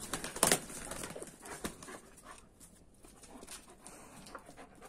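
Scuffle between a German Shepherd and a rooster: a quick flurry of wing flapping and scrabbling on concrete, loudest about half a second in, then fainter scattered clicks.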